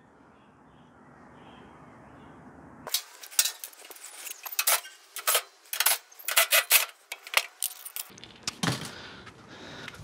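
Metal parts of a clothes dryer being handled during disassembly: a quick, irregular run of sharp clinks, clicks and rattles. It starts about three seconds in, after faint steady background noise.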